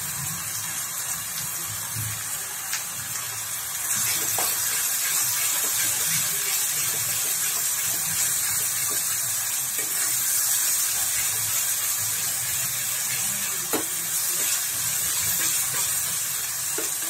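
Onion, garlic and ginger paste frying in mustard oil in a pan, a steady hissing sizzle that grows louder about four seconds in as it is stirred, with a few faint scrapes of a metal spatula.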